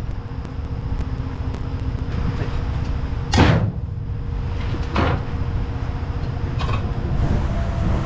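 Three sharp metal clunks, about three and a half, five and nearly seven seconds in, as a portable hydraulic hose crimping press is handled and set up on a wooden block, over a steady low machine hum.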